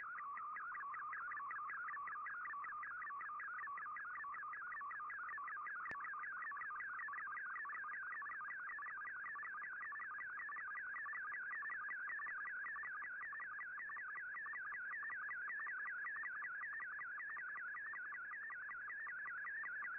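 MFSK digital picture transmission from a shortwave broadcast, heard through an Icom IC-R8600 receiver: a continuous high warbling tone that wavers rapidly up and down as an image is sent line by line, its pitch carrying the picture's brightness. A faint click about six seconds in.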